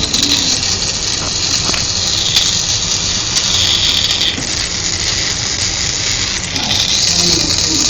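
Stick-welding (SMAW) arc burning steadily with an even, loud hiss.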